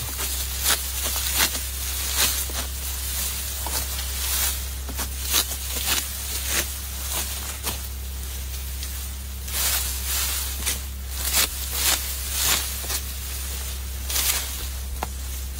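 A hand sickle cutting through dry, ripe rice stalks at their base: a crisp slashing crunch with each stroke, about one or two a second, with a short pause a little past halfway. The straw rustles as the cut bunches are grabbed and laid down.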